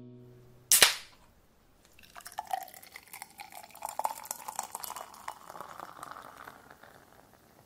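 A single sharp crack about a second in, then beer poured into a glass: the pour rises in pitch as the glass fills, with the fizzing crackle of the foam, and fades near the end.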